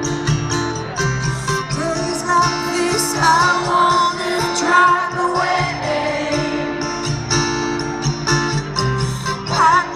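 Live pop music heard from the crowd: a woman singing over guitar and sustained chords.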